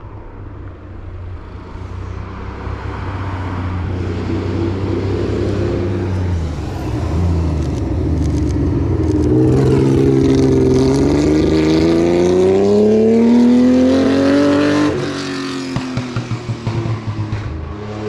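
Engine of a classic open-cockpit sports prototype race car accelerating up a hairpin and passing close by. Its note builds and then rises steadily in pitch for several seconds, loudest just before it drops off sharply near the end.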